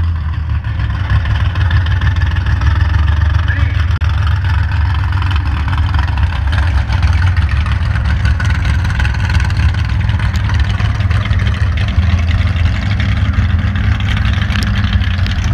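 Mega trucks' big-block engines, nitrous-injected and supercharged, running hard out on the course: a loud, steady low rumble.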